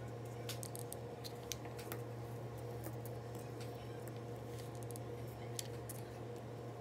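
Faint small clicks and taps as seashells are handled and pressed onto a metal hair clip while hot-gluing, over a steady low hum.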